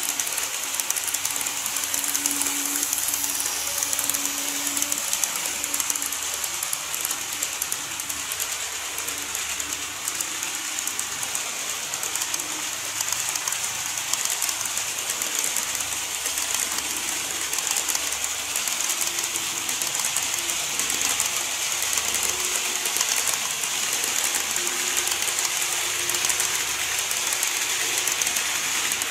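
N-scale model trains (KATO E231 series and TOMIX 103 series) running over a model truss bridge: a steady, even rattle of small wheels on track with a faint electric motor hum underneath.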